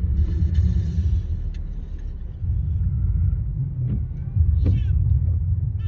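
Low, steady road rumble of a moving car heard from inside the cabin, with a brief hiss in about the first second and a half.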